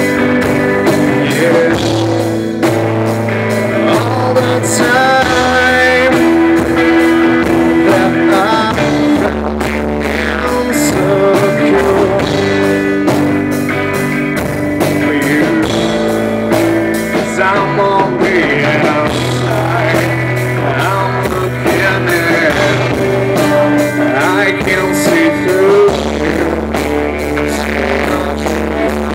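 Live rock band playing, with electric guitar and electric bass.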